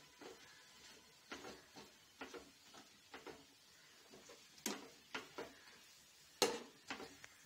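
Steel spoon scraping and knocking against a metal pan in about eight irregular strokes while stirring cooked vegetables and ground coconut, the loudest strokes near the end.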